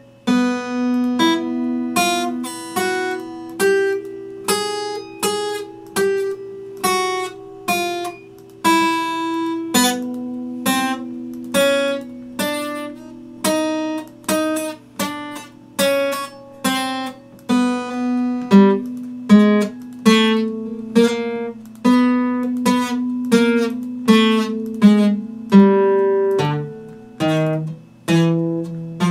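Epiphone acoustic guitar played solo: single plucked notes and chords at about two a second, each ringing out and fading, over a held low note.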